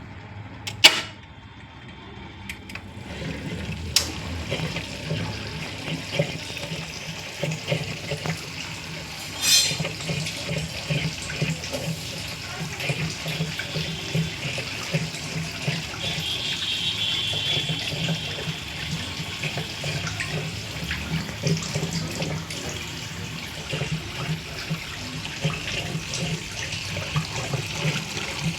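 Fully automatic washing machine running with water sloshing and rushing in its drum, a steady churning sound with rapid uneven pulses. A sharp click about a second in, another around four seconds, and a short burst near ten seconds.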